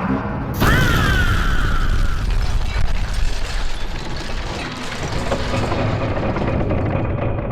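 Action sound effects: a sudden loud hit about half a second in with a falling whine, followed by dense mechanical clanking and rumbling.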